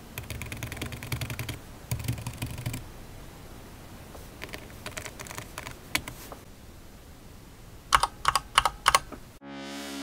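Keys on the Raspberry Pi 400's built-in keyboard being pressed in quick runs of clicks, then a few louder, sharper clicks near the end as keys are struck near their edges with a pencil, a keyboard made for presses at the centre of the keys. Electronic music starts just before the end.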